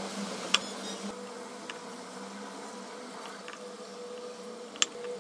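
Plastic vegetable peeler shaving thin curls off a soft pink block: a soft steady scraping with a faint hum under it, and two sharp clicks, one about half a second in and one near the end.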